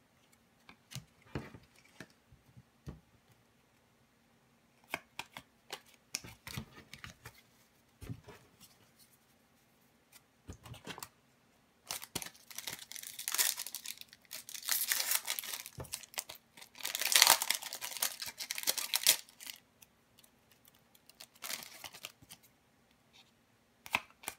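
Trading cards clicking and sliding against each other as they are handled. About halfway through, a foil card-pack wrapper is torn open and crinkled loudly for several seconds, followed by a few more card taps.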